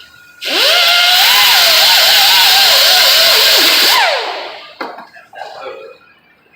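Handheld power grinder working on sheet-metal body panel. It spins up quickly, whines with a pitch that wavers up and down as it bears on the metal for about three and a half seconds, then winds down. A few knocks come after it.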